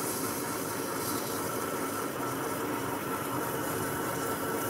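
Metal lathe turning slowly while a parting-off tool cuts a groove into a spinning metal bar: a steady machining noise, with the tool cutting cleanly and without much vibration or chatter.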